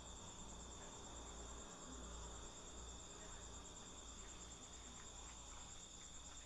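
Near silence: a faint, steady, high-pitched insect trill, like crickets, over a low hum.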